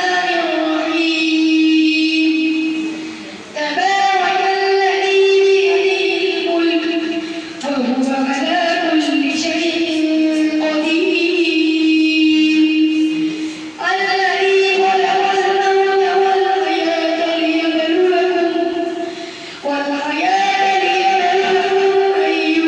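A madrasa student chanting a Qur'an recitation (tilawat) in Arabic: one melodic voice drawing out long held phrases, with four short breaks for breath.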